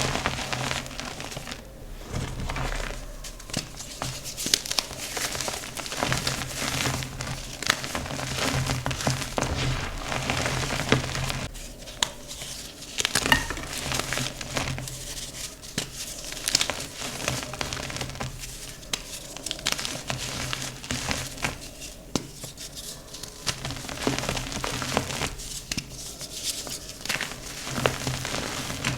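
Crunchy dyed gym chalk being crushed and crumbled by hand: dense, irregular crackling and crunching with many small sharp snaps.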